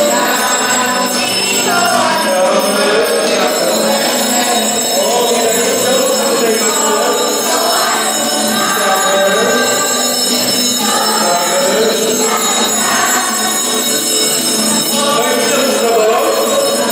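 A crowd of children and adults singing a song together, with jingle bells ringing along.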